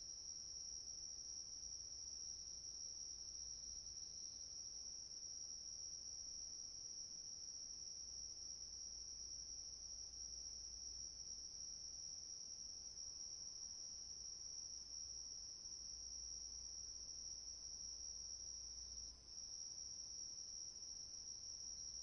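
A faint chorus of crickets chirping in a steady, unbroken high-pitched trill, dipping briefly near the end.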